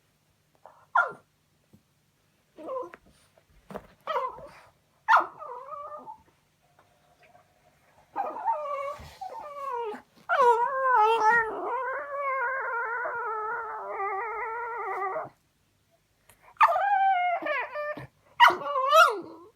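French bulldog whining and 'talking' in pitched, wavering calls: a few short whines in the first seconds, one long drawn-out whine of about five seconds in the middle, then more whines near the end. This is the fuss it makes when its toy has gone under the sofa.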